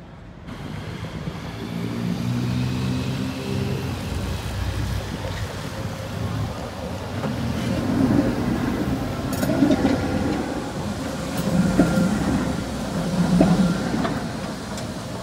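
Tatra tram running on its tracks: a hum of several steady tones from its running gear at first, then louder rumbling surges about every two seconds with a thin steady tone above them.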